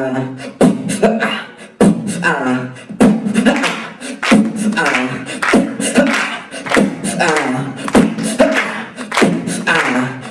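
A man making sound effects with his voice and mouth: sharp pops and clicks every half second or so, between wavering, sliding vocal noises.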